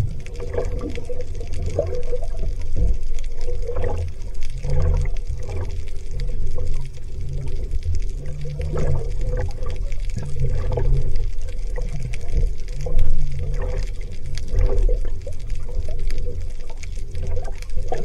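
Seawater sloshing and gurgling around an action camera riding at the sea surface, over a steady low rumble.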